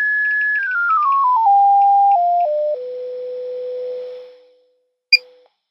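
Audio modulation tone of the Koolertron 60 MHz signal generator's AM-modulated 450 kHz carrier: a single pure tone stepping down in pitch in small steps as the modulation frequency is dialled down, then holding a lower note and fading out about four seconds in. A click with a short blip of the same tone comes near the end.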